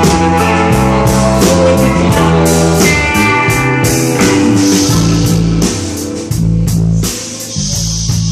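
Live rock band playing an instrumental passage: two electric guitars over bass and a drum kit keeping a steady beat, the music thinning out somewhat after about six seconds.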